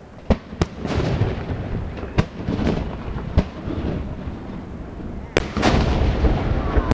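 Aerial fireworks shells bursting: single sharp bangs about a third and two-thirds of a second in, again near two seconds and three and a half seconds, each trailing off in a rumble, then denser, louder bangs and rumbling from about five and a half seconds on.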